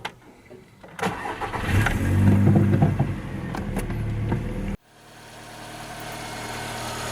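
VW Golf Mk5 petrol engine cranked and started about a second in; the revs flare briefly and then settle. Near the end of the second third the sound cuts off abruptly, and a steady idle follows.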